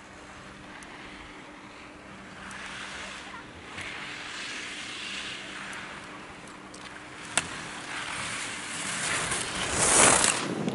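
Ski edges carving and scraping across hard-packed snow as a giant slalom racer turns through the gates, rising in waves with each turn and loudest near the end as the skier passes close. One sharp knock about seven seconds in.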